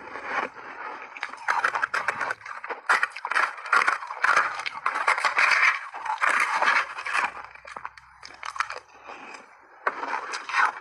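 Crunchy shaved ice with milk powder being chewed, heard close up through a lapel microphone: a dense, irregular run of crisp crunches and cracks that keeps going with the chewing.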